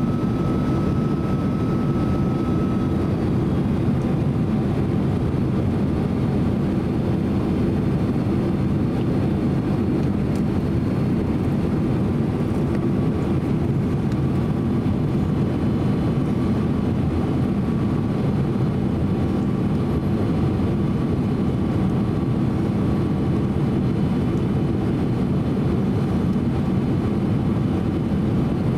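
Steady low rumble of jet engines and airflow inside the cabin of a Boeing 767-300 airliner descending on final approach, with a faint thin whine in the background.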